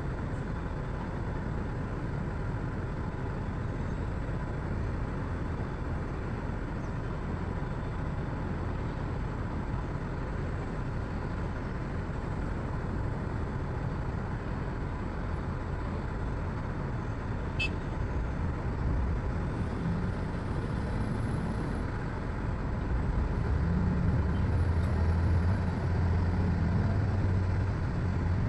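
Heavy diesel engine of construction machinery running steadily as a low rumble, getting louder for a few seconds near the end.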